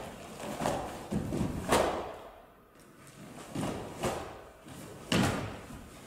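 Sharp snaps of a karate gi and thuds of bare feet on a wooden sports-hall floor as punches, steps and a kick are thrown, about six in all, the loudest a little under two seconds in and near the end, echoing in the hall.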